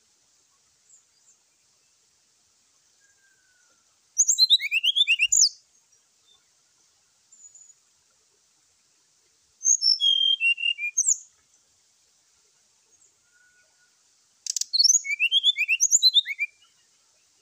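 Brown-chested jungle flycatcher giving its combative song: three separate bursts of quick, high whistled notes sweeping up and down, each one and a half to two seconds long. A sharp click comes at the start of the last burst.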